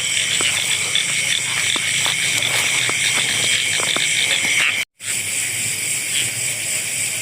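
Steady night chorus of insects and frogs, a high continuous shrill with faint ticks through it. The sound cuts out completely for an instant about two-thirds of the way through.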